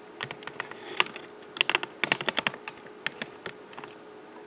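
Irregular small metallic clicks and taps as a measuring tool is set against and moved across the camshaft's intake lobes, in a quick cluster around the middle.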